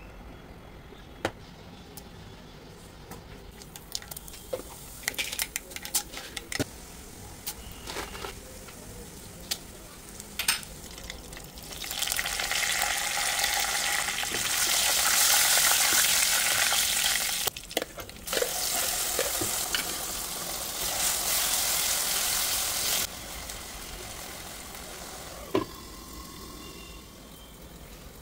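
Hot oil in a nonstick pan sizzling as a tempering of dal, dried red chillies and curry leaves fries, with scattered sharp clicks of stirring. About twelve seconds in, the sizzling turns loud and steady for about ten seconds, then drops to a quieter sizzle.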